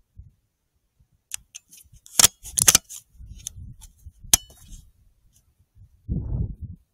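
Several sharp clicks and light rattles with low rustling between them: handling noise from a .308 rifle and its thermal scope as it is aimed at a pig.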